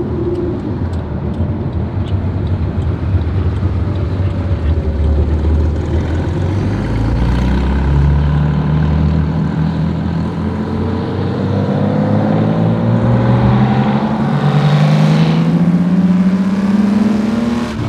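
Naturally aspirated air-cooled Porsche 911 flat-six accelerating. Its note climbs, drops at a gear change about two-thirds of the way through, then climbs again.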